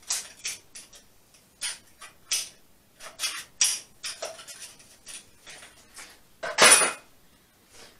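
Small kitchen knife cutting and scraping by hand: a string of short, light scrapes and clicks, with one louder rustling scrape about six and a half seconds in.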